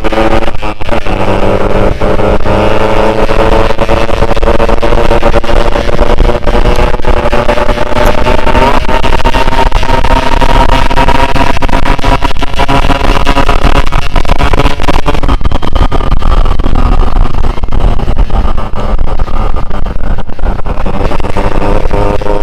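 Yamaha RX-King's two-stroke single-cylinder engine running loud under way, its pitch climbing as the bike accelerates about a third of the way in and then holding at a higher speed.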